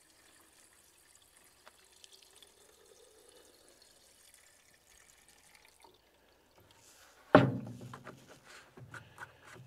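Gasoline being poured from a fuel can into a chainsaw's fuel tank, a faint steady trickle for about six seconds. Then a sudden loud thump, followed by a few short clicks and knocks.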